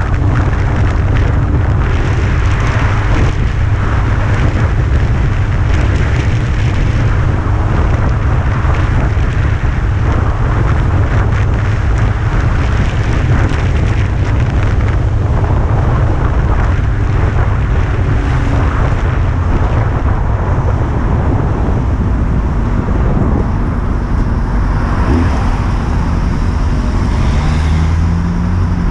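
Honda CBR600 sport bike riding along, its inline-four engine running under heavy wind rumble on the onboard microphone, with tyre hiss on the wet road. The engine note shifts briefly near the end as the bike slows behind traffic.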